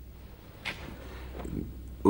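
Low steady hum with a single short click about two-thirds of a second in.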